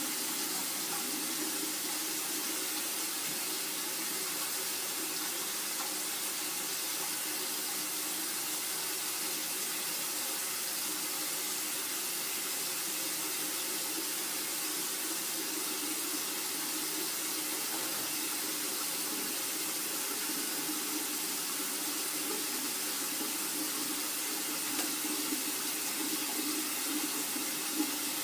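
Tap water running in a steady stream into a sink.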